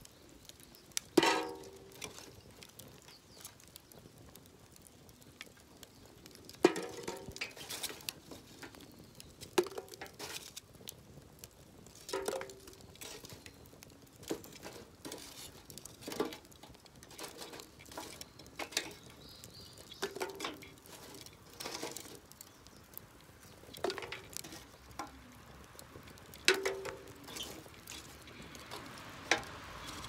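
Metal tongs knocking against a steel BBQ grill tray and clinking pieces of charred wood and charcoal as they are turned and lifted. The sharp, briefly ringing knocks come about every two to three seconds.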